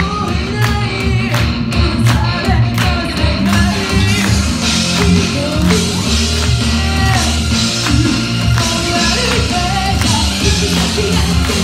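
A rock song performed live: a singer's voice through a handheld microphone over loud amplified music with a heavy bass line and a steady drum beat.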